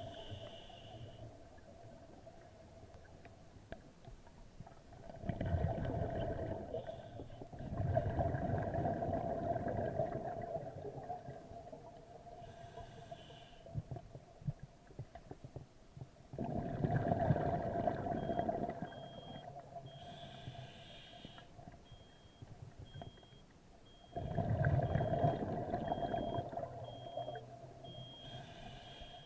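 Scuba diver breathing underwater through an open-circuit regulator: a burst of exhaled bubbles about every eight seconds, each lasting two to three seconds, under a faint steady hum.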